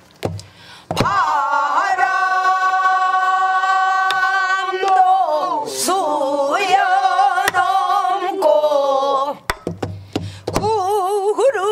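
Pansori singing: long held notes, some with a wide wavering vibrato, sliding down partway through, punctuated by a few sparse strokes on a buk barrel drum.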